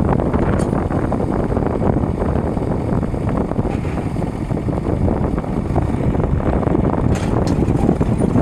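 Tractor engine running steadily while pulling a plough through the field.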